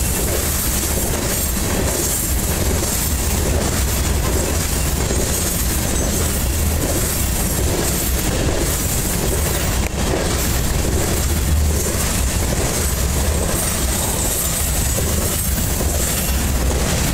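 Covered grain hopper cars of a freight train rolling past: a steady rumble of steel wheels on rail with a repeating clickety-clack as the wheels pass over the track.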